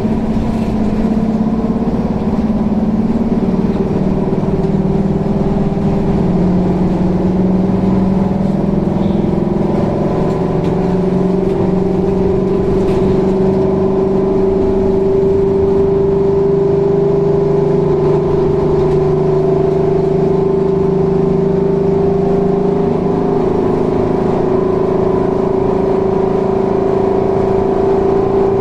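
Scania K360 bus running, with a steady whining tone over the engine note. The whine edges slightly up in pitch and then holds. It is the strange sound the video is about.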